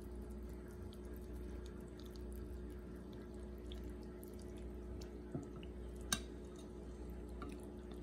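Metal spoon stirring and lifting a clear, syrupy sweet soup of lotus seeds, longans and white fungus in a glass bowl: faint liquid sloshing and dripping with small clicks. A sharp clink of the spoon against the glass comes about six seconds in.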